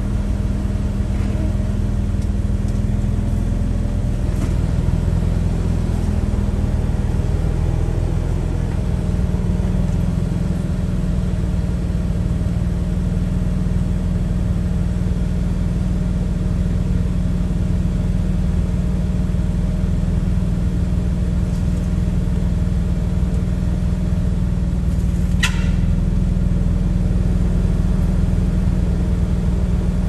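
Jeep Wrangler engine running steadily while the Jeep drives on an off-road trail, its pitch shifting in the first few seconds, with one short sharp sound late on.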